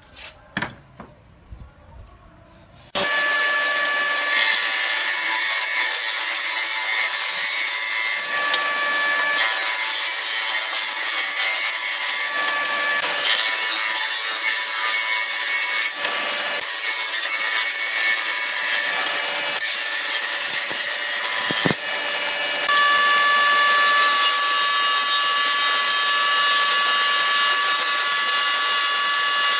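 Woodworking planer machine running and cutting boards: a loud, steady whine with several held tones over a hiss, starting abruptly about three seconds in after a few faint knocks.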